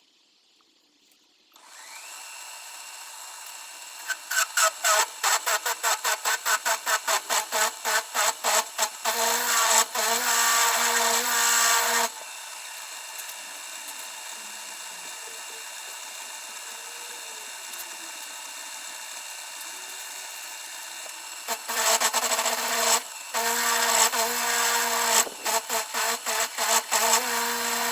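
A metalworking machine tool's motor starts about two seconds in and runs steadily, while loud metal-cutting noise comes and goes: first in rapid pulses, then continuous for a few seconds, then stopping with only the motor running, and pulsing again in the last few seconds.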